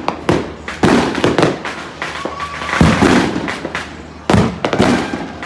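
Fireworks going off all around without pause: a rapid, irregular string of loud bangs and crackling pops, some overlapping, each trailing off in an echo.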